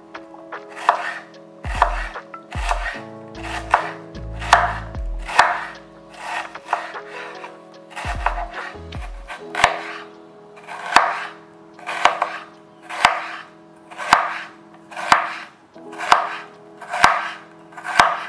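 Kitchen knife slicing a half onion into thin slices on a wooden cutting board: a crisp crunch through the onion, then a tap of the blade on the board, about once a second.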